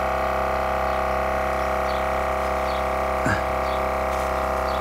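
Steady, unchanging drone of an air compressor running to inflate the packer bladder that presses the CIPP liner against the sewer pipe, with a brief faint click about three seconds in.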